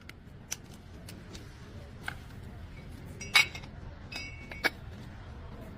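Metal tools and parts clinking: about five sharp taps, the loudest about three and a half seconds in, with a brief metallic ring after it and another a little later.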